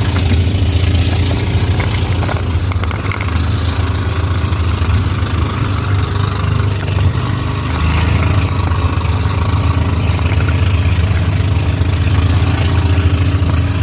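Outrigger boat's engine running steadily at cruising speed, a constant low drone, with the rush of water spraying off the hull.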